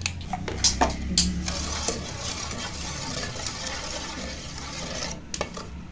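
Wooden spoon stirring wet cake batter in a metal bowl: a continuous wet swishing, with a few sharp knocks against the bowl in the first two seconds and one more near the end.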